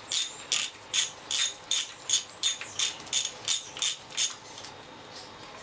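Ratchet wrench being worked back and forth, its pawl clicking in a steady rhythm of about three clicks a second, then stopping about four seconds in.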